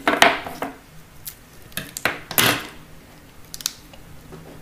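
Double-sided adhesive tape pulled off its roll and cut into a small strip with scissors: two short rasps, one near the start and a louder one about two seconds in, with a few light clicks between and after.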